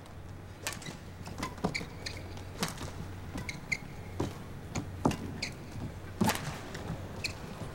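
Badminton rally: irregular sharp knocks of racket strikes on the shuttlecock and players' footfalls, with short high squeaks of court shoes on the floor.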